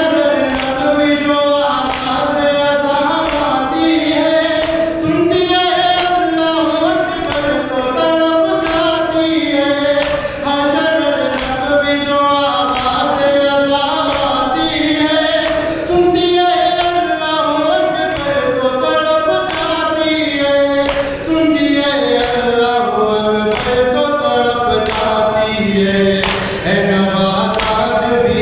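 Noha, an Urdu mourning lament, sung by voices in chorus, unaccompanied by instruments, over a regular beat of sharp strikes about one and a half a second.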